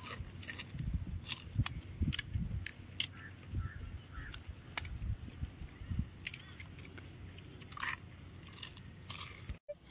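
Crisp pani puri shells crunching while being eaten, in short irregular crunches and clicks, with small birds chirping in the background.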